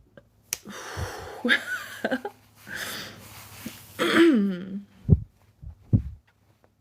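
A woman's breath and throat noises: wheezy breaths and throat clearing, with a short sound falling in pitch about four seconds in and a few low thumps.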